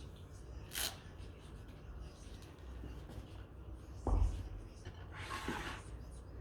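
Low room hum with a brief rustle about a second in, a dull thump about four seconds in, and a short hissing rustle just after it.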